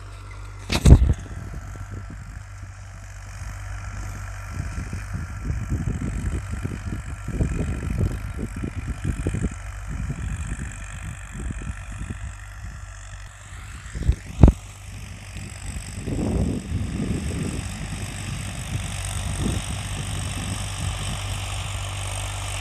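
Tractor engine running steadily while pulling a tiller through a field, heard from a distance, with irregular low rumbles. Two sharp knocks, about a second in and again around fourteen seconds in.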